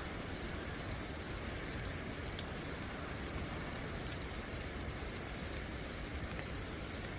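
Steady rain falling at night with crickets trilling continuously on a high, unbroken tone.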